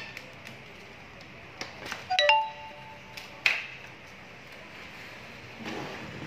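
Plastic clicks and clatter as the housing of a Sharp AR-6020D copier's developer unit is taken apart by hand. A little after two seconds in there is a short ringing clink that dies away within half a second, and a sharp click comes near the middle.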